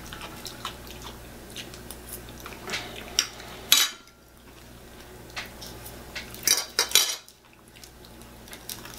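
Metal forks clinking and scraping against plates as food is cut and picked up, with scattered small knocks; the sharpest clatter comes about four seconds in and again around seven seconds.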